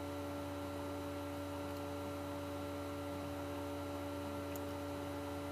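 Steady electrical mains hum made of several unchanging tones, with two faint clicks about two seconds and four and a half seconds in.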